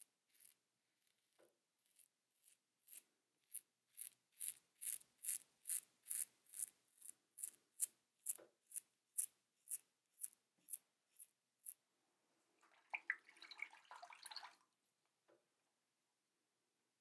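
Double-edge safety razor (Manscaped Plow 2.0 with a Wilkinson Sword Classic blade) scraping through lathered stubble in short strokes, about two a second, followed by a brief denser scratchy patch and a last single stroke.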